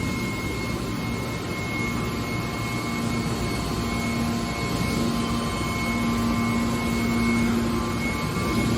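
Automatic metal baler running with a steady mechanical noise and a low hum that grows stronger about three seconds in and again about five seconds in.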